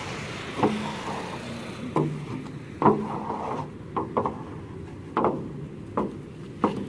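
A long-handled scraper scraping and knocking against a large jaggery-boiling pan, pushing the thick, finished cane-juice jaggery out into a wooden trough. There are about eight strokes, roughly one a second, at uneven spacing.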